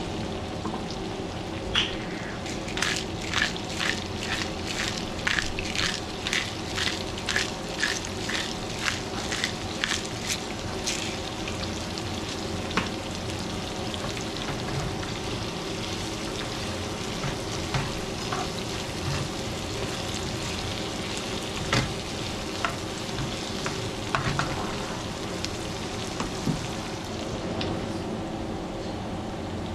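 Sliced onions and ginger sizzling in a nonstick frying pan. For the first ten seconds or so a pepper mill is ground over them in a run of short, even strokes, about two a second; later come a few scattered clicks of a utensil against the pan.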